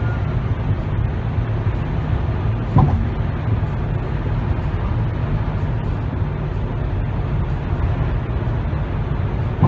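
Steady low road and engine noise inside a car's cabin at highway speed, with one brief thump about three seconds in.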